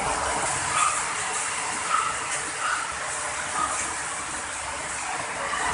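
Floodwater rushing through a flooded street: a steady gushing noise.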